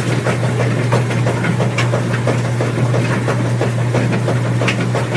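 Washing machine running: a steady low hum under a quick, uneven run of small knocks and swishes, about three a second.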